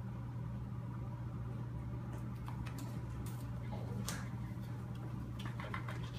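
Steady low hum, with scattered light scuffs and clicks from about two seconds in as a cat pounces and twists after a wand toy on the carpet; the sharpest click comes about four seconds in.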